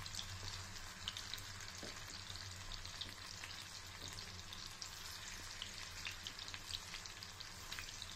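Masala-coated prawns deep-frying in hot oil in a small pan: a steady sizzle with many small crackles and pops.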